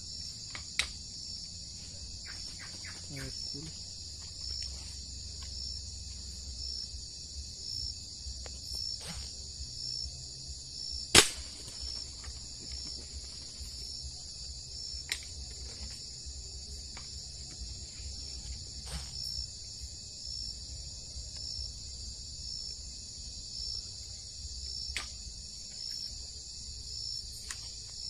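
Steady chorus of night insects: a high buzz with a faint chirp repeating about once a second. A single sharp crack about eleven seconds in is the loudest sound, with a few fainter clicks elsewhere.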